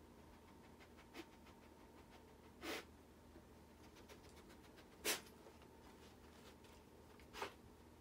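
Japanese Akita puppy sniffing while searching for a target scent: four short, sharp puffs of breath through the nose, the loudest about five seconds in, over a quiet room.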